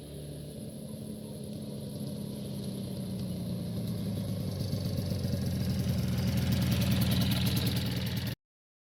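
Motorcycle two-stroke engine running with a steady note, growing steadily louder over several seconds, as if approaching, before the sound cuts off abruptly near the end.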